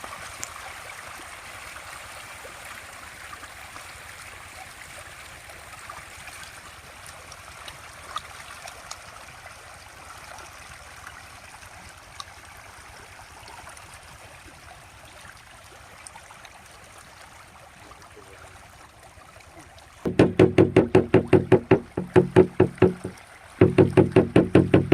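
Steady running or trickling water with a few faint ticks. About twenty seconds in, loud rhythmic synthesizer music cuts in: a fast, evenly pulsing pitched beat with a short break near the end.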